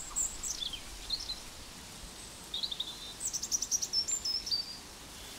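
Birds singing: a series of high whistled calls and chirps, some sliding down in pitch, with a quick run of rapid notes about three seconds in, over a faint steady hiss.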